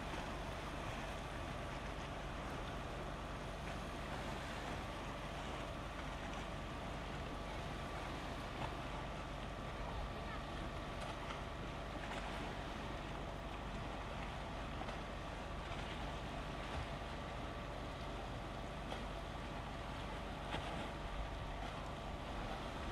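Wind on the microphone and calm sea water lapping against rocks: a steady noise with a faint constant hum under it.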